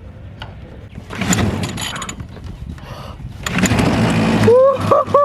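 Small two-stroke outboard (Hankai 3.6 hp) being pull-started: two yanks of the recoil starter cord, each a short burst of cranking. The engine catches on the second pull near the end.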